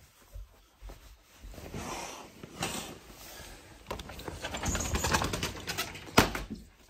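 Rustling and knocking as a phone is carried and handled, with a sharp click about six seconds in as a red catch at the top of a window or glass door is worked.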